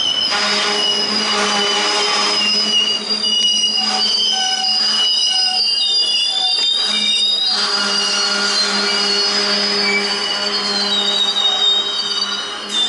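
Freight train's covered hopper cars rolling past, their steel wheels squealing in several high, wavering tones over a low steady hum.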